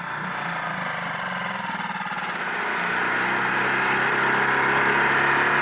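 Six-horsepower outboard motor running after its warm-up, growing steadily louder through the second half.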